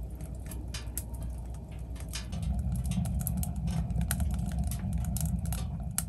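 Burning wood crackling and popping in irregular sharp snaps, over a steady low rumble that grows louder about two seconds in.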